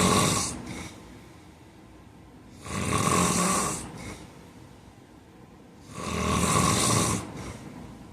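A man snoring loudly in his sleep: a long snore on each breath, repeating about every three seconds, with a short faint puff of breath just after each one.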